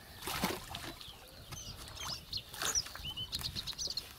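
Shovels cutting and scraping into wet, muddy soil, two louder strokes about half a second in and past the middle with smaller scrapes between. Small birds chirp in short high notes through the second half.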